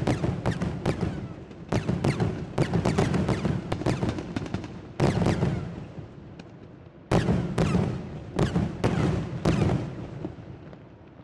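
Daylight fireworks: aerial shells bursting overhead in rapid clusters of sharp bangs, each followed by a rolling echo. The bursts thin out and the rumble fades over the last couple of seconds.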